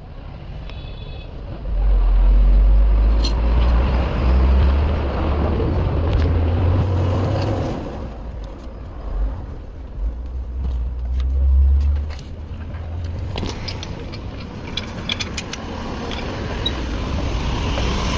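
Low rumble of a motor vehicle engine, loudest for several seconds starting about two seconds in and again briefly around ten seconds in, with light clicks and taps toward the end.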